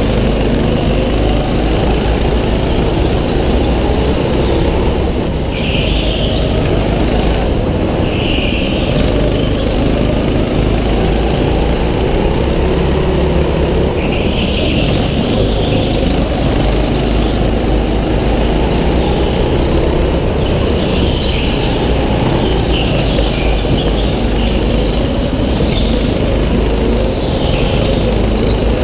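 Go-kart engine running steadily, heard close up from the kart itself, with repeated short bursts of tyre squeal on the smooth indoor track floor as the kart goes through the corners.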